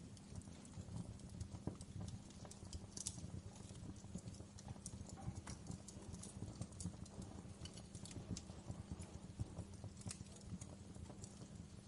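Wood fire crackling in a fireplace: irregular pops and snaps over a low steady rumble.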